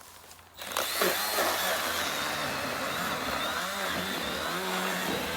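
Milwaukee M12 Fuel battery chainsaw starting up under a second in and running steadily as it cuts into wood.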